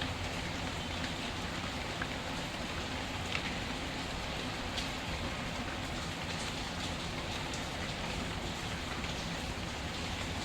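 Steady rain, with occasional sharp crackles and pops from a burning wood fire, roughly one every second or two.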